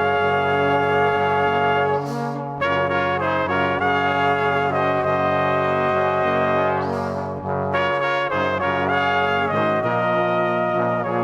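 Background music of slow, sustained held chords in a brass-like timbre, with two short hissy swells about two and seven seconds in.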